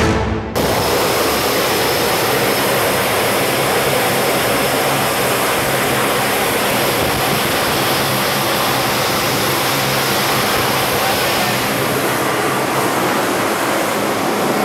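Steady, loud drone of a rescue flying boat's turboprop engines and propellers, heard from inside its cabin.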